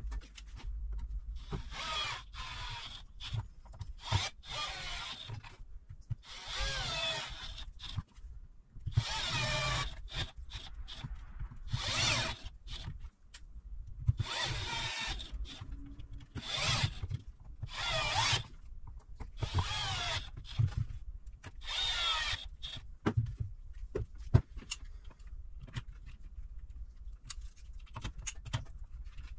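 Small cordless screwdriver running in about ten short bursts of a second or so each, its motor pitch wavering as it drives screws into a Bosch GST 18V-LI jigsaw during reassembly. In the last few seconds only light clicks of parts being handled are heard.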